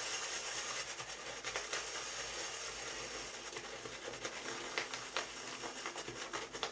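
Synthetic shaving brush swirling shave cream around a lathering bowl, a steady soft swishing hiss with a few faint clicks as the bristles build the lather.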